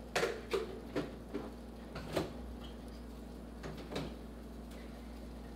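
Refrigerator door opened and a plastic bowl set inside: a string of short knocks and clunks, several close together in the first two seconds and two more about four seconds in, over a faint steady low hum.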